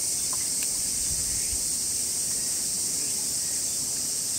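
Cicadas singing in a steady, unbroken high-pitched chorus, with faint low rustles beneath.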